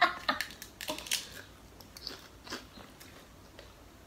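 Biting into and chewing a crisp close up: a quick run of sharp crunches in the first second and a half, then a couple more, fading out a little past halfway.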